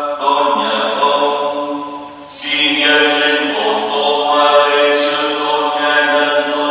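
Slow, chant-like liturgical singing in long held notes, with a short break about two seconds in before the next phrase.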